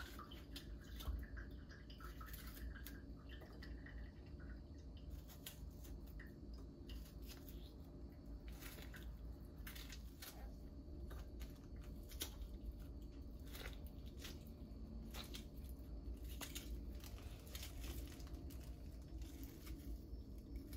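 Knife slicing a tomato held in the hand: faint, irregular soft snicks and squishes as the blade cuts through the skin and flesh and pieces fall into a bowl, over a low steady hum.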